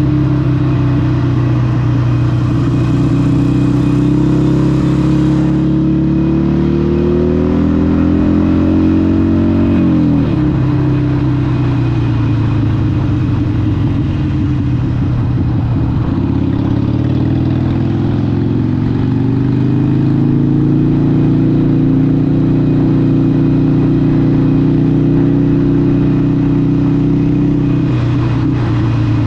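Harley-Davidson 883 SuperLow's air-cooled 883cc Evolution V-twin running through a Vance & Hines exhaust while riding. The engine note rises for about ten seconds, drops sharply, then climbs again and holds steady near the end.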